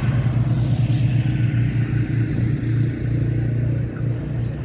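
Road traffic: a motor vehicle running close by with a steady low rumble.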